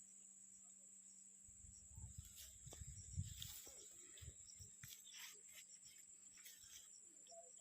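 Near silence: a faint steady high-pitched whine with a few scattered soft knocks and rustles between about two and five seconds in.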